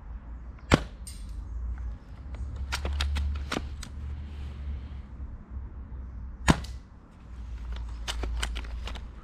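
Ares Striker 01 spring-powered bolt-action airsoft sniper rifle fired twice through a homemade silencer packed with floral foam bored to BB diameter: two sharp shots about six seconds apart. Each shot is followed a couple of seconds later by a quick run of clicks as the bolt is cycled to re-cock and load the next BB, over a low rumble.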